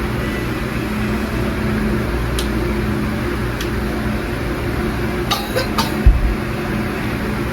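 A quick run of sharp cracks from a client's joints being adjusted by a chiropractor, about five seconds in, then a single loud, deep thump. A steady machine hum underlies it all.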